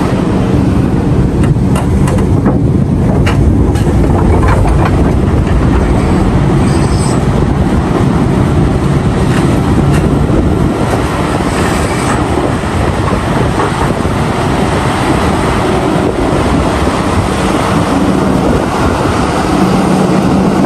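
Heavy mining machinery working: a steady, loud engine rumble from a Liebherr R974 hydraulic excavator loading a mining truck, with a run of knocks and clatter a couple of seconds in.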